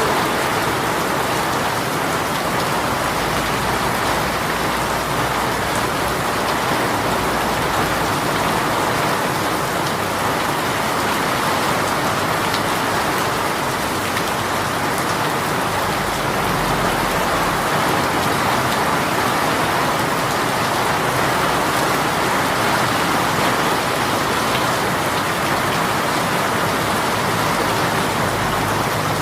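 A rain shower falling steadily, an even hiss of rain with no breaks.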